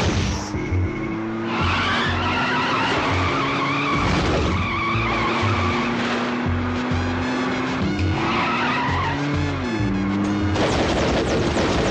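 Film background score with a steady pulsing beat and sustained tones, mixed with a car speeding on a dirt road and its tyres skidding. A rush of noise near the end comes as the car sweeps past.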